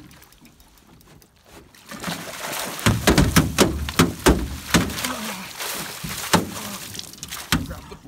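Large northern pike thrashing in a landing net beside an aluminum boat. Water splashes heavily from about two seconds in, with repeated sharp knocks against the hull, then eases to a few separate knocks near the end.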